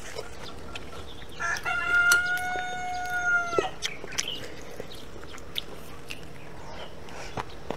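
A rooster crowing once: a long call held on one pitch for about two seconds, breaking off with a quick downward drop.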